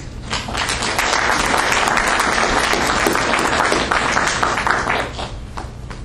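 Audience applauding: many hands clapping, starting about half a second in, full within a second, and fading out near the end.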